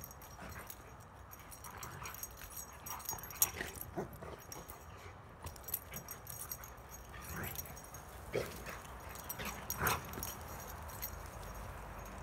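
A husky and a Rottweiler at rough play, with short dog vocal sounds and scuffling scattered through. The loudest come about a quarter of the way in and again about four-fifths of the way through.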